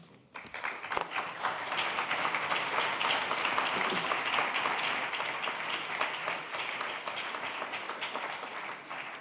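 Audience applauding: many people clapping at once, starting suddenly just after the start and thinning out near the end.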